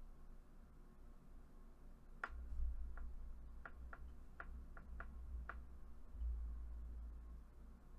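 A faint low hum with a run of about eight sharp, irregularly spaced clicks in the middle.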